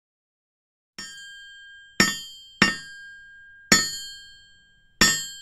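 Hammer blows on an anvil: five sharp strikes at an uneven pace, the first lighter, each followed by a clear metallic ring that dies away.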